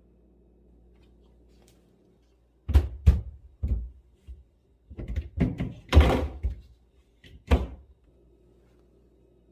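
A series of knocks and thunks from objects being handled: about ten over five seconds, the loudest about six seconds in.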